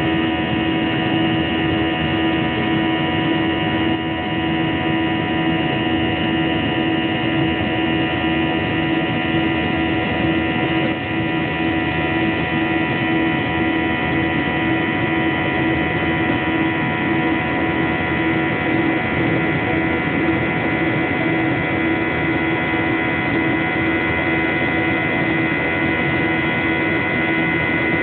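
Steady engine and air noise heard inside a passenger aircraft's cabin in flight: an even rush with several steady humming tones over it.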